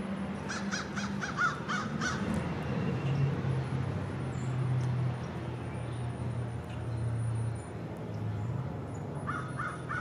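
A bird calling in a quick run of about seven harsh calls in the first two seconds, then another run starting near the end, over a low steady hum.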